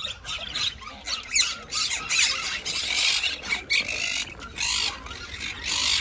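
A crowd of budgerigars chattering, many short high chirps and warbles overlapping without a break.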